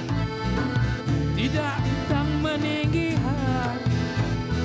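Live Malay joget music led by a Hohner piano accordion playing the melody, with bass guitar and a steady dance rhythm underneath.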